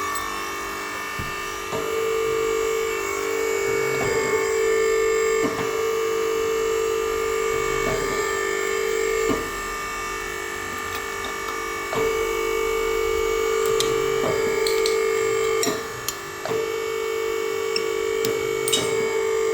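A newly wired three-phase electric machine running with a steady, loud motor hum. Scattered clicks sound every second or two, and the level dips briefly about halfway through and again a few seconds before the end.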